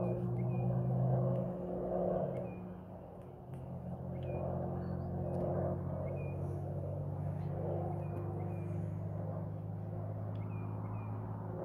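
Distant aircraft engine droning steadily overhead, its pitch dropping slightly about two seconds in.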